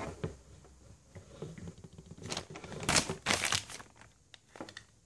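Sharp, irregular plastic clicks and taps from a Wild Willy 2 RC car's plastic gearbox being worked by hand as its nylon bushings are knocked out. The clicks bunch together about halfway through.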